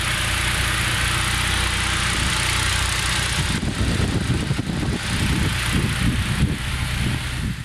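Suzuki Fun's engine idling at operating temperature with its electric radiator cooling fan running, a steady rush over the low engine hum: the fan has switched on because the engine has warmed up. About halfway the rush eases and an uneven low rumble comes in.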